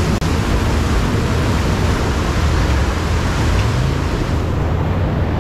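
Fast-flowing river water rushing past a metal pontoon, with wind on the microphone and a low engine rumble underneath. The hiss eases a little near the end.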